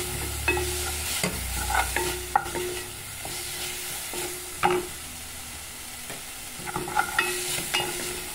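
Wooden spoon stirring and scraping chopped tomato, peppers and onion sautéing in oil in a stainless-steel pot, with a steady sizzle under irregular knocks and scrapes of the spoon against the pot.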